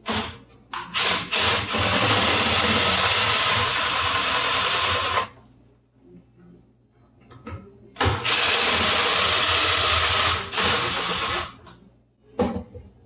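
Milwaukee 18-volt cordless impact driver driving screws into a plastic car blower motor housing. A few short bursts, then two long runs of about four and three seconds with a pause between.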